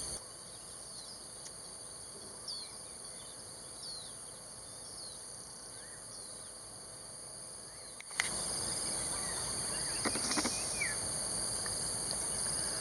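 Steady high-pitched insect drone, like crickets, with small birds giving short falling chirps over it. About eight seconds in there is a click, and the background becomes louder.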